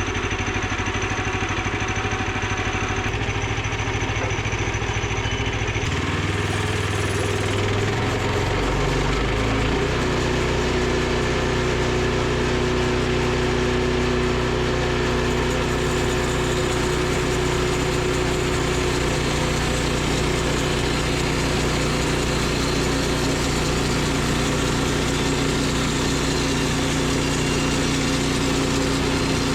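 Portable band sawmill's engine running, speeding up between about six and ten seconds in as the throttle opens, then holding steady at speed for a resaw cut through a board.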